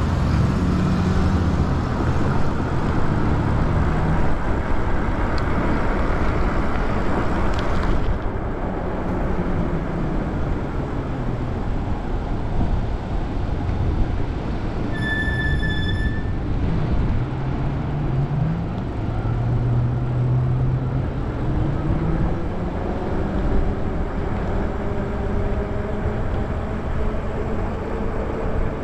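Wind rushing over the microphone with road noise from riding an electric bike in traffic, the bike's electric motor whining faintly and rising in pitch as it speeds up in the second half. A short high beep sounds about halfway through.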